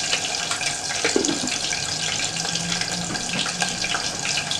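A pot of water heating on the stove, making a steady bubbling hiss with many small pops as it comes up to the boil. A faint low hum runs underneath.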